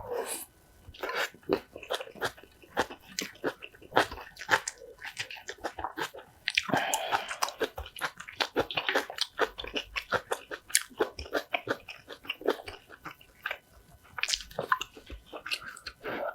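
Close-miked chewing with repeated crunching bites of food, busiest about seven seconds in.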